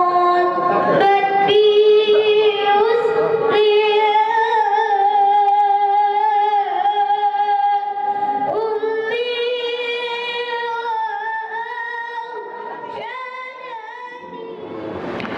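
A single high voice singing long, held, ornamented notes. It grows quieter over the last few seconds.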